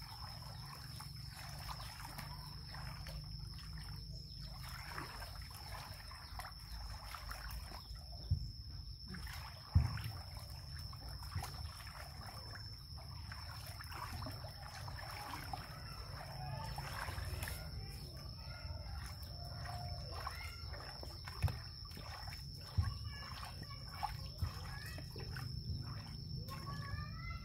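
Water trickling, sloshing and splashing in a large plastic tub as a young monkey swims and hands move through the water, with a few sharp knocks. A steady high-pitched whine runs underneath, and short chirps come in the second half.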